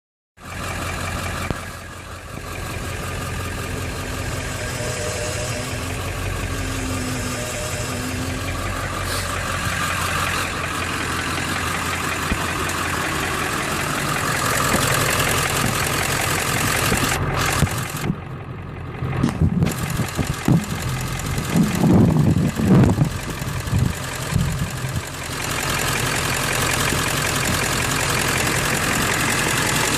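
Ford 7.3 truck engine idling steadily. A faint wavering whine comes about five to eight seconds in, and a stretch of irregular low groaning and knocking comes about twenty to twenty-four seconds in. These are the steering and brake noises being shown.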